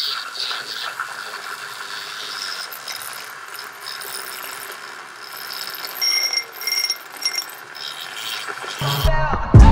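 Handheld milk frother whirring as its whisk spins in liquid in a glass jug, with three short higher-pitched spells in the second half. Music cuts in loudly just before the end.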